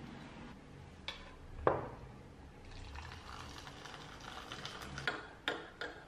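Two clinks of a metal spoon against the tea jar and infuser, then water poured from a stainless-steel kettle into a mug for about two seconds, followed by several quick clinks of the metal tea infuser against the mug.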